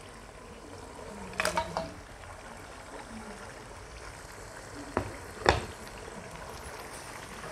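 Onion-and-ghee masala bubbling in a non-stick pot as boiled beef pieces are added, a steady simmering hiss. A few sharp knocks in the pan come about a second and a half in and twice around five seconds, the loudest near five and a half seconds.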